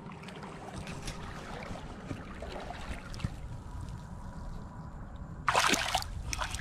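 A snook splashing in a tub of water: one loud splash about five and a half seconds in, and a smaller one just after, over a steady low rumble.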